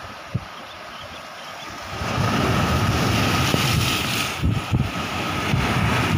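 Sea surf breaking and washing over the boulders of a rock breakwater, growing louder about two seconds in, with wind buffeting the microphone.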